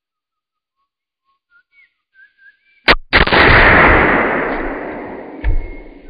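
A single .22 Magnum gunshot about three seconds in, hitting a Kevlar helmet, followed at once by a long rushing noise that fades over about two seconds as the helmet is knocked across the metal table. A thump comes about five and a half seconds in as the helmet falls off the table; faint bird chirps come before the shot.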